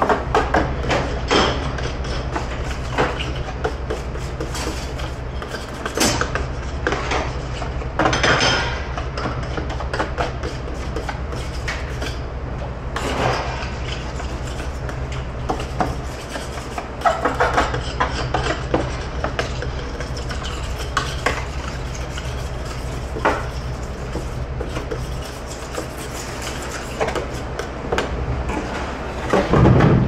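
Metal sheet pan being scrubbed and knocked about in a stainless-steel sink of soapy water: irregular scraping, clatter and clanks over a steady low hum. Louder clanks near the end as the pan is lifted and tipped.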